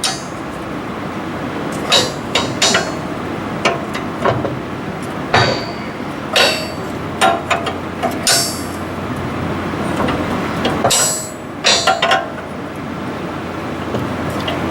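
Irregular sharp metallic clanks and clicks of a hand wrench working a nut along a dirty threaded rod, the nut cutting through the dirt on the threads.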